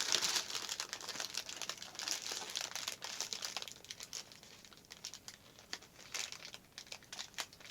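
Paper goodie bag being handled and opened, crinkling: dense crinkling for the first few seconds, then sparser crackles.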